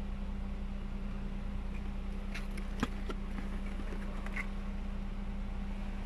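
Steady low hum of a running car, heard from inside the cabin. A few soft clicks and taps come around the middle as a cardboard box is handled.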